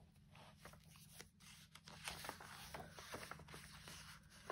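Faint rustling and soft scattered taps of paper and card as the pages of a handmade mixed-media art journal are handled and turned.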